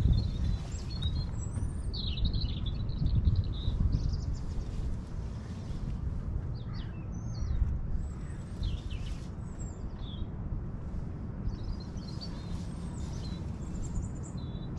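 Small birds calling and chirping on and off, over a steady low rumble.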